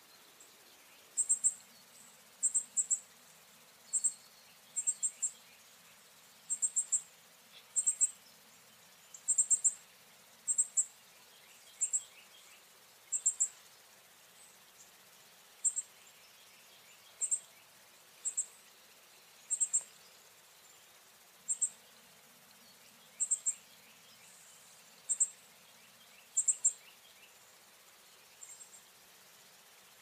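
Northern cardinal fledgling calling: short, high-pitched chips repeated about once a second, often in quick pairs or threes.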